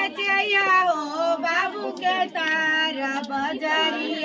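Several women's high voices singing a folk wedding song together.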